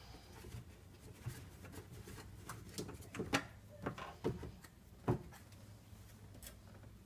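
Side panel of a MakerBot Replicator 3D printer being pulled off the frame by hand: a few light clicks and knocks, bunched together about three to five seconds in.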